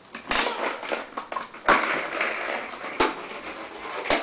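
A child doing a gorilla impression: breathy, noisy huffs and grunts, broken by a few sharp thumps.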